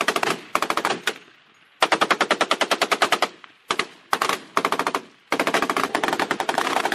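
Bursts of automatic gunfire, roughly ten shots a second, broken by short pauses. The longest bursts come around the middle and near the end.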